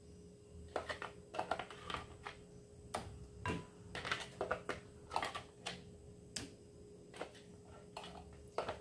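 A spatula scraping and knocking against the inside of a clear plastic food-processor bowl while scooping out thick sweet potato purée, in a quick, irregular series of clicks and taps.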